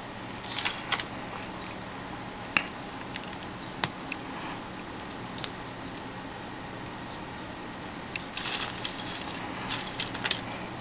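Small plastic model-kit parts clicking and rattling as they are handled and sorted by hand. Scattered single clicks, with a short burst of rattling about half a second in and a longer, busier one near the end.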